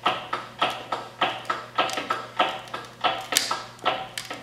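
Hydraulic shop press pumping in quick, even strokes, about three a second, each a sharp pulse that trails off, as the ram presses 18-gauge sheet steel over a wooden form. One louder, sharper snap comes about three and a half seconds in.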